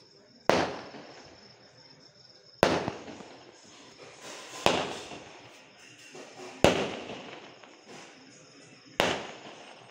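A 12-shot aerial firework cake firing: five sharp bangs about two seconds apart, each trailing off in an echo.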